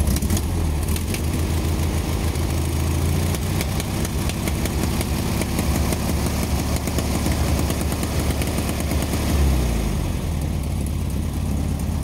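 Classic VW Beetle's air-cooled flat-four engine idling steadily. It has not yet warmed up. The engine swells briefly about nine and a half seconds in.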